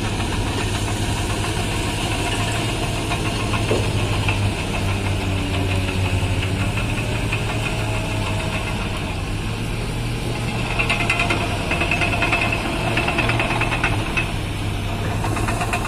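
Heavy diesel engine running steadily with a low drone. From about eleven seconds in, a higher whine and clatter join it for a few seconds.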